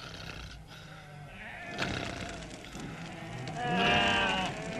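Sheep bleating, one loud wavering bleat near the end, over soft background music.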